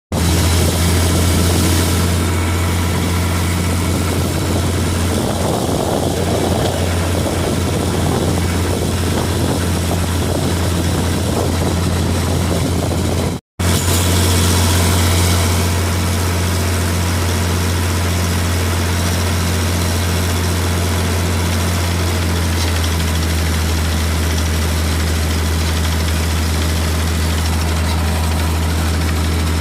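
Sullair 375 cfm portable air compressor's diesel engine running steadily with a deep, even drone, supplying air to a 76 mm down-the-hole hammer drilling a well. The sound drops out for a moment about halfway through.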